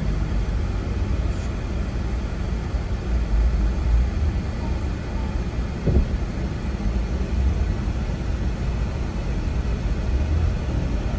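Steady low rumble of a moving tour vehicle's engine and road noise, with a single knock about six seconds in.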